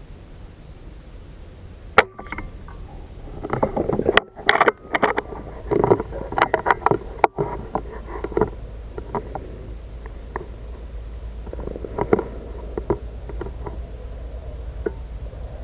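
An air rifle shot: one sharp crack about two seconds in. It is followed by a few seconds of close clicks and knocks, then sparser faint clicks over a low steady hum.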